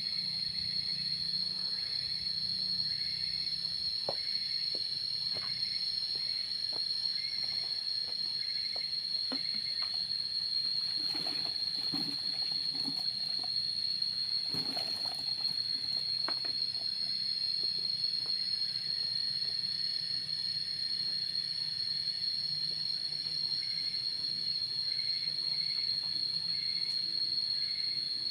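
Outdoor insect chorus: a steady, high-pitched insect drone throughout, with a second insect chirping in short pulses that repeat about once or twice a second. Scattered light clicks and rustles come mostly in the middle.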